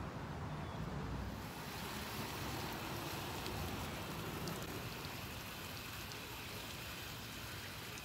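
Garden hose spray nozzle showering water onto moss and plants in a bird bath planter, a steady spray that starts about a second in, over a low rumble.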